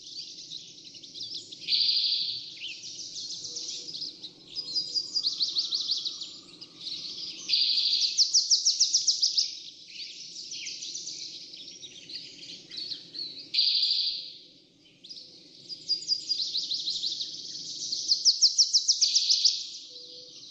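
A flock of songbirds singing and calling together, with repeated fast high trills a second or two long that overlap one another, over a faint low steady rumble.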